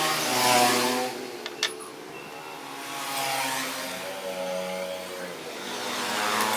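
Sewing machine running under its motor, speeding up and slowing down in swells about every three seconds, with a sharp click about a second and a half in.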